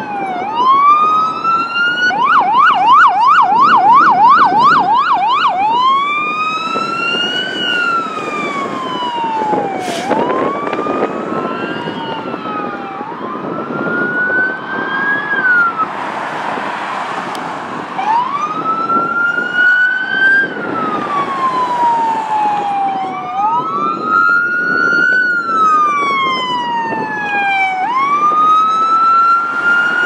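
Electronic sirens on a fire engine, a rescue truck and an ambulance going past in turn, with engine and tyre noise underneath. The sirens mostly wail, rising and falling every couple of seconds; a couple of seconds in, one switches to a fast yelp of about three sweeps a second for a few seconds. Near the end, two sirens wail at once.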